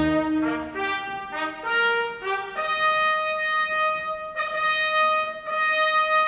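Orchestral brass playing alone, with the rest of the orchestra silent: a quick run of short stepping notes, then one long held note, broken off briefly twice and sounded again.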